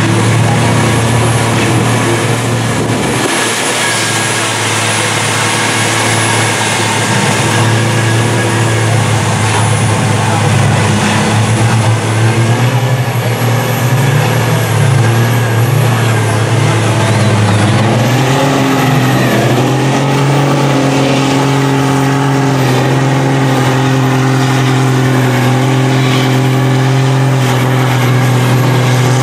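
Built Cummins diesel in a Dodge Ram on tractor tires working hard in deep mud, held at steady high revs, then revving higher with a rising pitch about eighteen seconds in.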